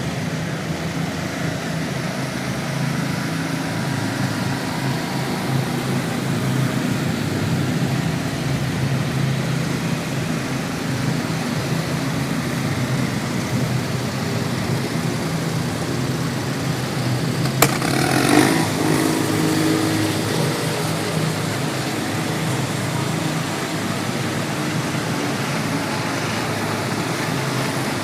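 Small engines of riding lawn mowers and other small off-road vehicles running steadily as they pass. About two-thirds of the way through, a single sharp crack is followed by a brief pitched sound lasting a couple of seconds.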